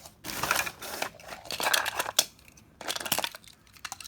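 Packaging crinkling and rustling as it is handled, in three bursts with small clicks between.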